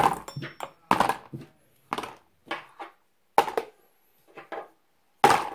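Metal fidget spinners knocking and clacking as they are set down one at a time in a plastic storage container: about eight short, irregular knocks.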